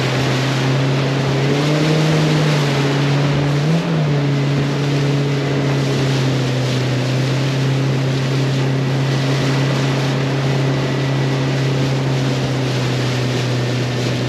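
Suzuki 140 four-stroke outboard driving a water-jet boat under way upriver, running steadily with its pitch briefly rising twice in the first four seconds, over the rush of water and wind.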